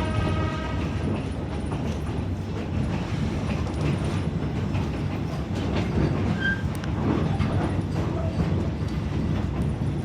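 Train rolling along the track, a steady low rumble with scattered clicks of the wheels over the rails. The tail of a horn blast ends about a second in.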